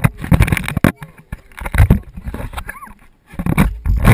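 Swimming-pool water splashing and sloshing against a camera held at the waterline, in loud bursts with short lulls between them.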